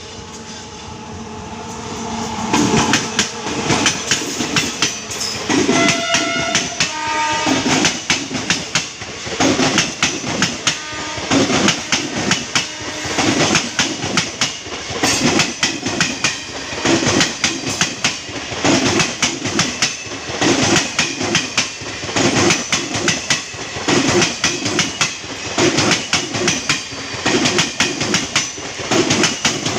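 A WAP5 electric locomotive's horn sounds and fades out about two seconds in. The train then passes with a steady, loud, rhythmic clatter of wheels over rail joints.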